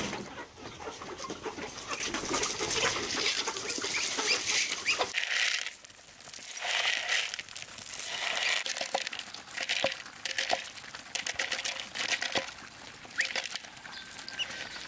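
Flock of chickens clucking as they peck at dried corn kernels scattered on stony ground, with many small sharp clicks from the kernels and beaks on the gravel.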